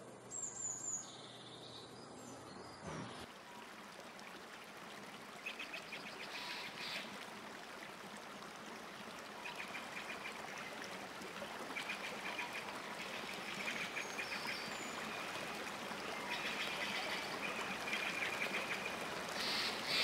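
Bird calls: a few high, thin chirps at first. After about three seconds comes a steady outdoor hiss, with short runs of rapid, buzzy chattering every few seconds.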